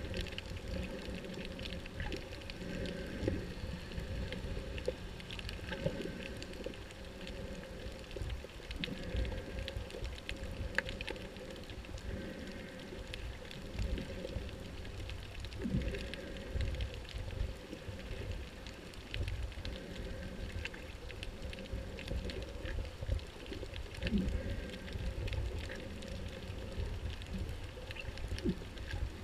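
Underwater ambience picked up by a camera below the surface: a steady low rumble of moving water with many scattered faint clicks and crackles.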